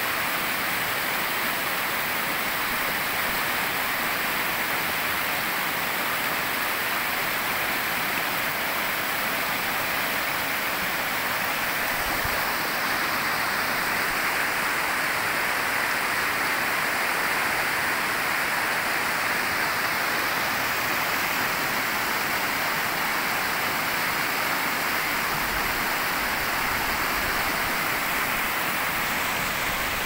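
River water rushing over rocks: a steady, unbroken rush.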